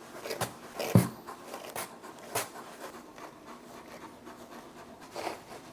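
Scattered short scratchy strokes and rustles from a Leonberger's long coat being handled during grooming, with a single thump about a second in.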